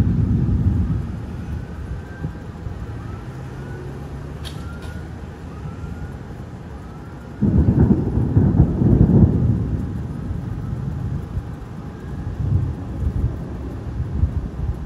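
Thunder rumbling. A rumble at the start dies away, then a much louder peal breaks in suddenly about halfway through and rolls on for a few seconds, with softer rumbles near the end.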